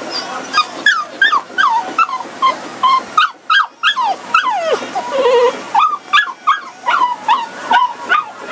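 A dog whining to beg for food: a long run of short, high whines, most falling in pitch, two or three a second, with a brief pause a little past the middle.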